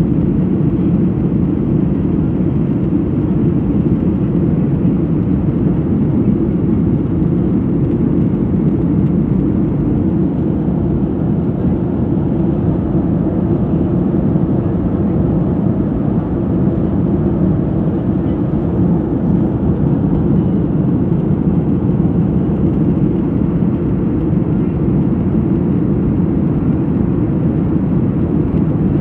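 Jet airliner cabin noise in flight: the engines and rushing air make a steady, low-pitched drone that stays even throughout.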